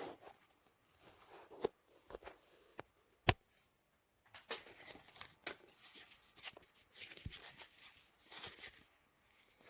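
Quiet handling noise: scattered clicks and rustling or crinkling, with one sharp click about three seconds in. No motor is running.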